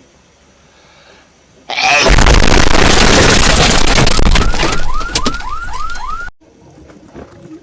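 Meme sound effect for a hedgehog's sneeze: about 1.7 s in, a sudden, extremely loud, distorted explosion-like blast lasting about four and a half seconds. Near its end comes a quick run of rising whoops, about three a second, and then it cuts off abruptly.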